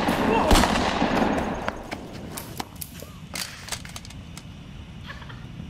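Gunfire: one loud gunshot about half a second in, amid shouting, followed by a scattering of fainter, sharp shots over the next few seconds.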